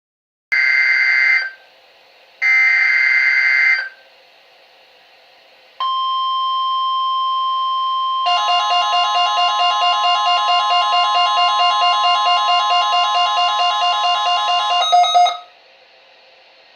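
NOAA Weather Radio alert: two short bursts of screeching SAME digital header data, then the steady 1050 Hz weather alarm tone starts about six seconds in. About two seconds later the receiver's own pulsing alarm, about four pulses a second, sounds over the tone, and both cut off about fifteen seconds in, leaving faint hiss.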